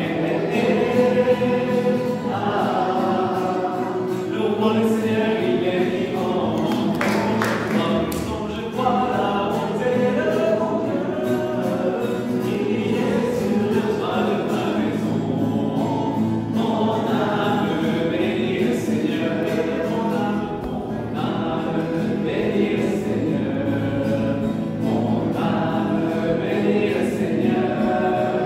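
A congregation singing a hymn together, many voices in unison, unbroken throughout.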